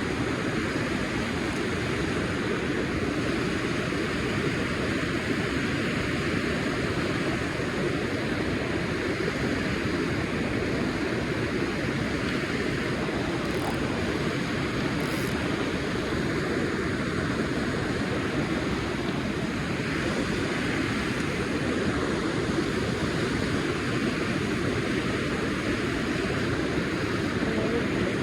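Steady, unbroken rush of a fast-flowing river running strong.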